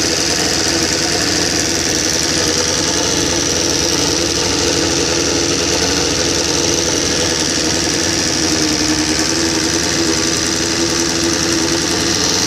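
1999 Suzuki GSX-R750 SRAD inline-four engine running steadily, with a fast mechanical ticking rattle that the owner suspects may be the cam chain tensioner, after a rebuild with a high-compression 600 head and freshly adjusted valves.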